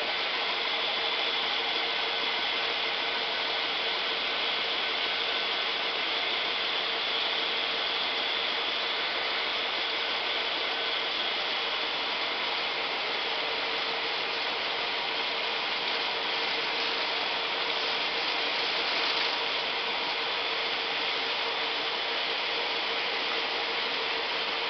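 Round drawcord braiding machine running: its bobbin carriers and gears make a steady, unbroken mechanical clatter with a constant whine in it.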